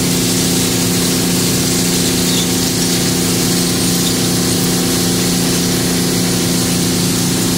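Hydraulic clam dredge machinery running at a steady pace: an unchanging engine and pump drone with a constant hiss of spraying water.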